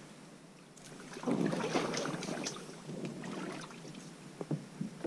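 Mangrove branches and leaves rustling and scraping as a kayak is pulled along them by hand through a narrow mangrove tunnel, starting about a second in. A few light knocks follow near the end.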